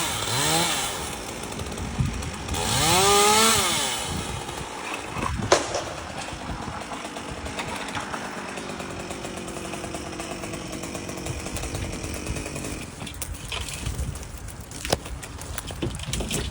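Chainsaw revved up and back down twice in the first four seconds, then running steadily at a lower speed, with a sharp knock about five and a half seconds in.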